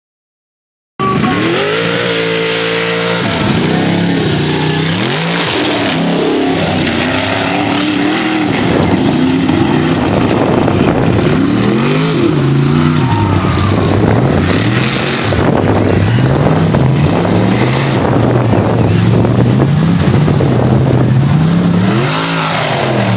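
Mega truck engine revving hard, its pitch climbing and dropping again and again as the truck is driven through dirt. It starts abruptly about a second in.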